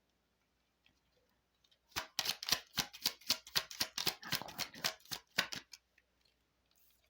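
A tarot deck being shuffled by hand: a quick, irregular run of sharp card slaps and flicks, about five a second, starting about two seconds in and stopping near six seconds.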